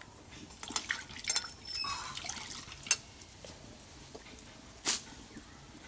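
Water sloshing and dripping in a steel karai as it is scrubbed out by hand and rinsed, with a few sharp clinks of the metal pan and a brief ring about a second in.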